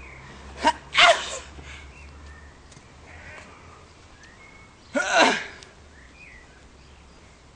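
Two short wordless vocal outbursts from a person, one about a second in and a longer, louder one about five seconds in. A brief sharp tick comes just before the first.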